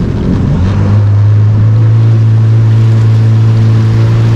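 Yamaha WaveRunner engine revving up about half a second in, then running steadily at cruising speed, with water and wind rushing past.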